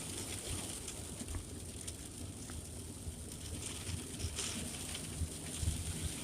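Light rain pattering on a car in scattered drops, heard from inside, over a steady low rumble of the car on the road.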